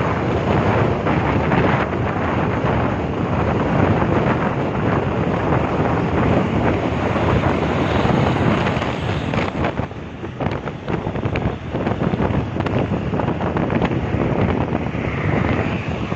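Wind rushing over the microphone from a vehicle moving at highway speed, with road noise underneath. It eases briefly about ten seconds in.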